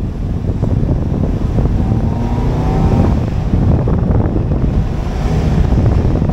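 In-cabin driving noise from a 1984 Subaru wagon: its flat-four boxer engine runs loudly through an exhaust riddled with holes, mixed with wind and road rumble. A faint rising tone comes in about two seconds in as the engine pulls.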